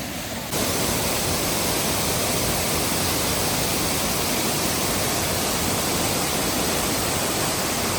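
Waterfall's rushing water, a steady even noise that gets louder about half a second in.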